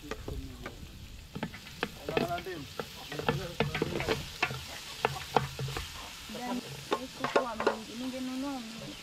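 A spoon stirring chicken as it fries in a pot, with sizzling and repeated clicks and scrapes against the pot. The chicken is catching on the bottom of the pot.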